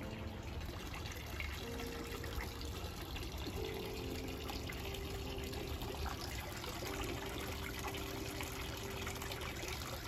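Water trickling and splashing from a pipe outlet into a small garden pond, a steady rush. Under it, faint held tones shift in pitch every second or two.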